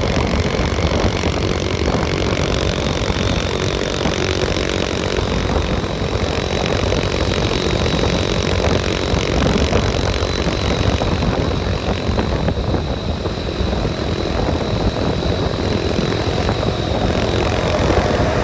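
A moving vehicle running steadily, its engine drone mixed with heavy low road and wind rumble and a thin, steady high whine through most of it.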